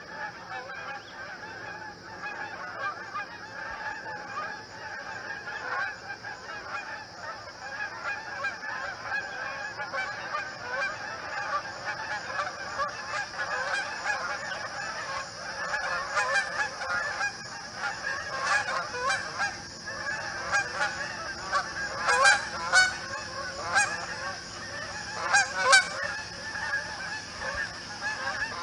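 A flock of Canada geese honking, many calls overlapping without a break. Louder, sharper honks stand out in the second half, the loudest a little over three-quarters of the way through.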